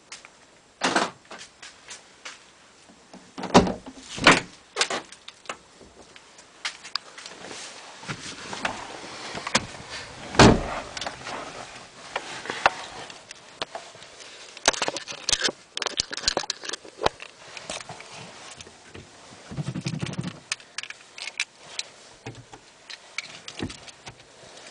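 Irregular clicks and knocks with a few sharper thumps, the loudest about a second in, around four seconds in, and about ten and a half seconds in.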